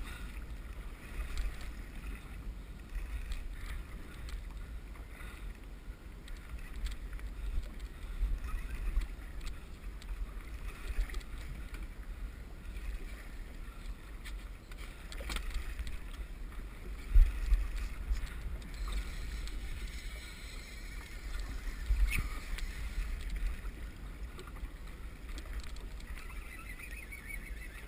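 Wind buffeting a camera microphone aboard a boat on open water: an uneven low rumble with a faint hiss above it. A few short knocks stand out, the loudest about seventeen seconds in.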